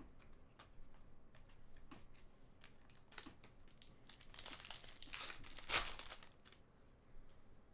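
Foil wrapper of a trading-card pack crinkling as it is handled and torn open, with the sharpest tear a little after the middle. Before it, light clicks of cards being handled.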